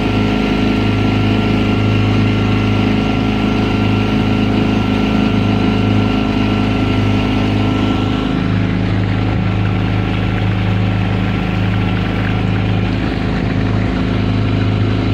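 Outboard motor of a small open boat running steadily, heard from aboard as the boat moves along, its note shifting slightly about eight seconds in.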